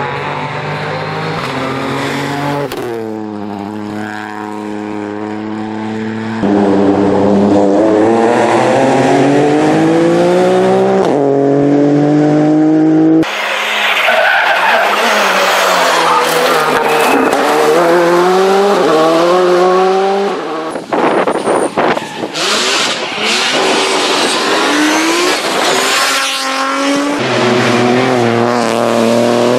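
Rally cars at full throttle, engines revving up hard and dropping back at each gear change, in several separate passes that switch abruptly from one to the next. A run of sharp crackles comes about two-thirds of the way through.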